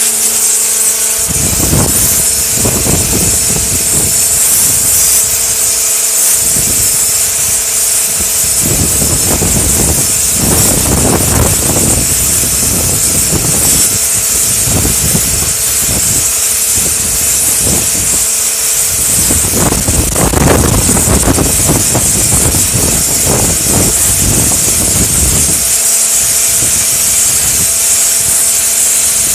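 An 1800 psi pressure washer spraying a narrow, full-pressure jet to blast graffiti off a wall: a steady loud hiss with the pump's hum underneath and uneven surges as the jet plays over the surface.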